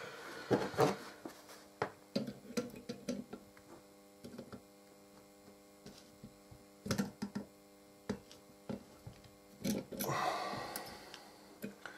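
Steady electrical mains hum, with scattered small clicks and taps as pliers and a soldering iron work a resistor on a circuit board held in a clamp. A brief rushing noise comes about ten seconds in.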